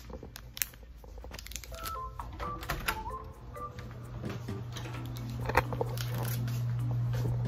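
Sharp clicks and cracks as braces brackets are pried off the teeth, over a low steady hum that grows louder in the second half.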